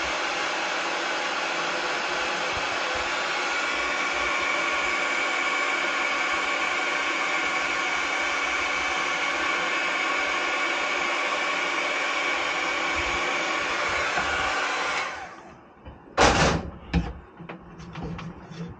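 Small handheld butane torch hissing steadily as it shrinks heat-shrink tubing over a wire splice. It shuts off about fifteen seconds in, followed by a sharp knock and a few light clicks.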